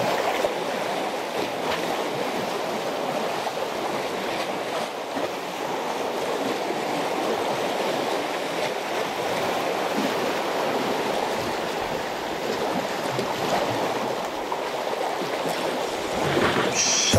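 Sea waves washing and churning steadily among concrete tetrapod blocks of a breakwater.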